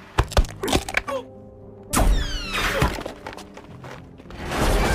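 Action-film soundtrack: a quick run of sharp knocks and impacts, then a loud crash about two seconds in with falling tones trailing off, over film music, with noisy action sound building near the end.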